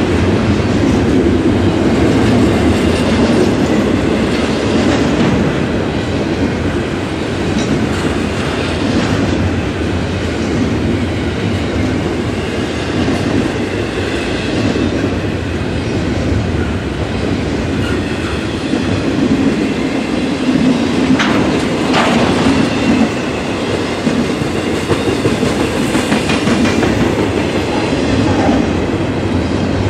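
Double-stack container well cars of a freight train rolling past at speed: a steady rumble of steel wheels on rail with clickety-clack over the joints, a couple of sharp clanks about two-thirds of the way through, and a faint high wheel squeal at times.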